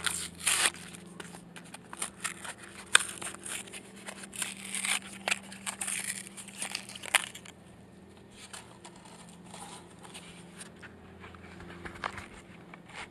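Plastic blister packaging being crinkled and torn open to free a crankbait, with dense sharp crackles and snaps for about the first seven seconds, then quieter scattered rustling.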